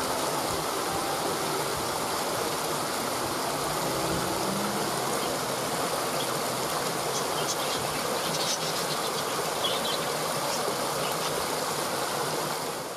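Water of a small cascade pouring steadily over rocks in a continuous rushing hiss, fading out right at the end.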